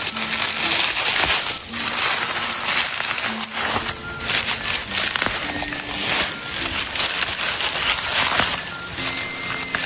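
Rustling and crackling of leaves and stalks as wild osmunda fern shoots are picked by hand, with many small snaps, over faint background music.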